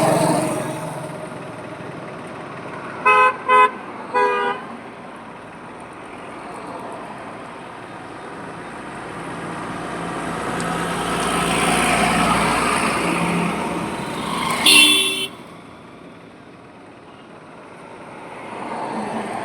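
Highway traffic: passing vehicles' engine and tyre noise, swelling as one goes by partway through. About three seconds in there are three short horn beeps, two quick and one just after. Near fifteen seconds there is a single louder horn honk, the loudest sound.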